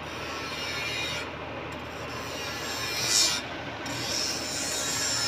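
TIG welding arc hissing steadily on a steel pipe joint as filler rod is fed in, with a louder swell of noise about three seconds in.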